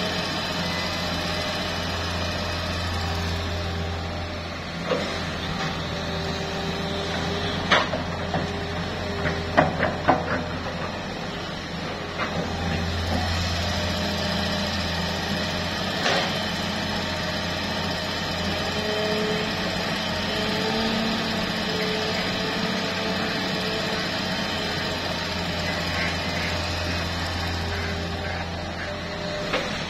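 Hitachi hydraulic excavator working: its diesel engine runs steadily under a low hum, with pitches that rise and fall as the hydraulics dig and swing. A handful of sharp knocks come between about five and sixteen seconds in.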